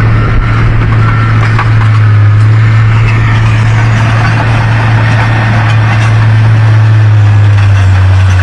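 Excavator's diesel engine running steadily, a loud deep hum under a constant mechanical clatter.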